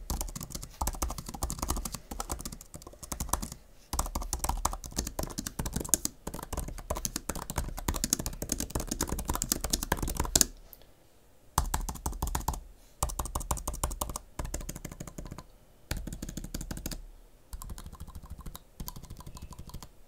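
Fast typing on an Apple Magic Keyboard for iPad Pro: dense runs of key clicks in bursts, with short pauses between them and a longer break about halfway through.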